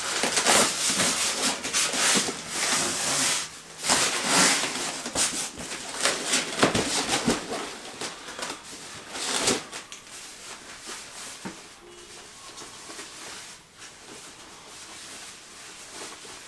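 Packing material and box being handled as an electric guitar is unpacked: rustling and scraping with sharp crinkles, busiest for the first ten seconds or so, then quieter handling.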